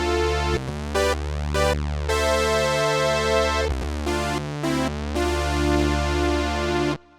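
Arturia OB-Xa V software synthesizer, an emulation of the Oberheim OB-Xa analog poly synth, playing a preset patch: held chords over a steady bass, with several short bright hits. The sound cuts off abruptly about seven seconds in.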